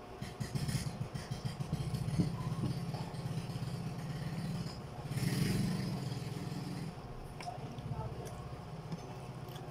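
A small engine running steadily, swelling louder for about a second and a half around the middle, with a few light clicks of fingers against plates.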